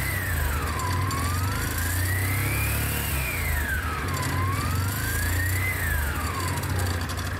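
Yamaha ATV engine running with its Ultramatic CVT belt drive exposed. The engine is revved up and down about three times, and the pitch climbs and falls with each rev as the primary and secondary sheaves spin and shift the belt. This is a test run after a sheave service, and the drive is operating normally apart from a slight rattle from the primary support cage, which is missing some of its bolts.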